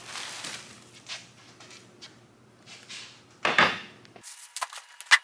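Plastic wrap and foam packing rustling and crinkling as they are pulled off the parts, with a louder rustle about three and a half seconds in and a few sharp knocks near the end.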